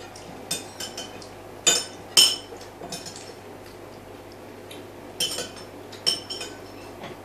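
Scattered sharp clinks of hard objects such as glass or crockery knocking together, about ten in all, the two loudest about two seconds in. A steady low hum runs underneath.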